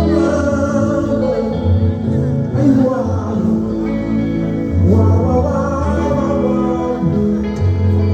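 Band music: a male voice singing over sustained bass notes and guitar.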